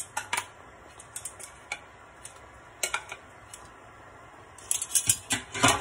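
Metal kitchen tongs clinking against a cooking pot as food is turned: a few separate clicks, then a quick run of clatters near the end.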